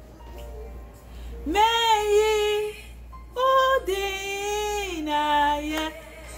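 A woman singing a slow melody in long held notes, in three phrases with short pauses between them.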